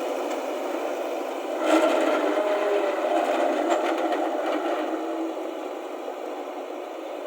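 JCB backhoe loader's diesel engine running steadily, with a brief burst of scraping clatter about two seconds in.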